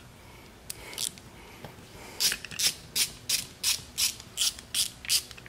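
Hand ratchet clicking as an 8 mm socket backs the float valve seat out of a carburetor body: a couple of single clicks, then from about two seconds in a steady run of sharp clicks about three a second.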